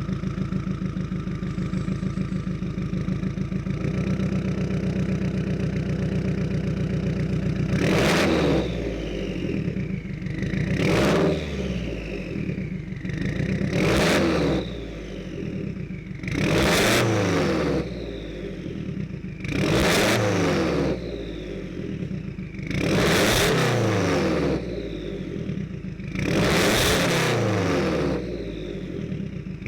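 2015 Subaru WRX's turbocharged flat-four with a Tomei UEL header, idling steadily and then revved seven times about three seconds apart. Each rev climbs quickly and falls back toward idle.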